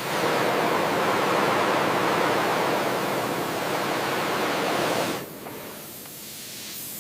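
A loud, steady rushing hiss that cuts down sharply about five seconds in, leaving a fainter hiss.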